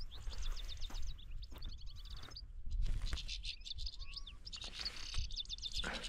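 Small songbird calling: repeated short runs of quick, high chirps, with a couple of brief whistled notes between them.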